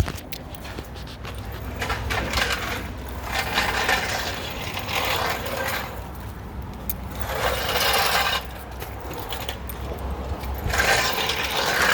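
Metal clicks and clatter of a mechanic working under the car with a jack and hand tools, over a low steady hum, with a few swells of noise.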